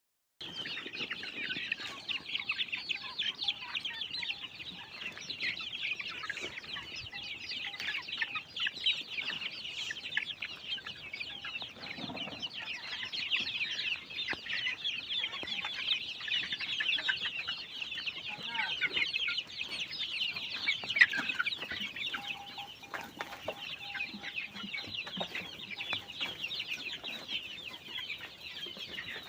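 A large flock of chickens calling all at once: a dense, unbroken chatter of high chirps and clucks.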